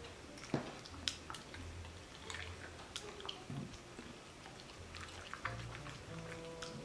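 Faint, scattered wet clicks and smacks of a Shiba Inu's mouth as she sniffs and nibbles pieces of cooked meat on a plate.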